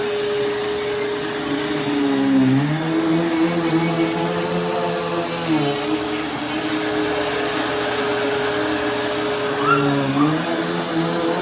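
Bissell CleanView Swivel Pet 3198A upright vacuum cleaner running: a steady motor hum over a rushing airflow hiss. The hum dips lower in pitch twice, once for about three seconds and once briefly near the end, each time coming back up.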